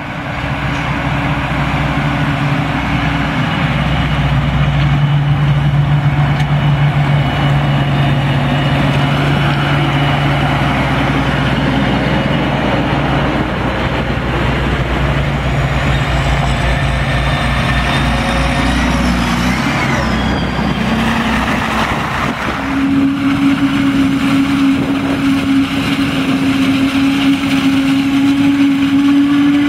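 John Deere 8R-series tractor pulling a silage trailer, its engine running steadily, with a high whine rising near the twenty-second mark. About 22 seconds in the sound changes to the steady drone of a self-propelled forage harvester chopping maize.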